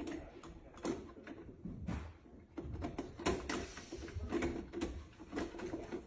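Steel handcuffs and padlocks rattling and clicking against a plexiglass box as a wrist is worked inside a tight cuff: a run of irregular clicks and knocks.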